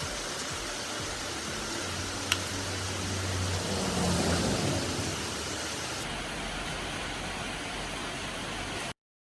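A steady hissing noise with a low hum in the middle and a single sharp click about two seconds in; it cuts off suddenly near the end.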